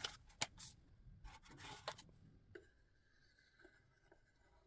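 Faint handling of thin wooden strips in a clamped jig: rubbing and scraping with a few sharp clicks for about two seconds, then only faint room noise with a thin steady hum.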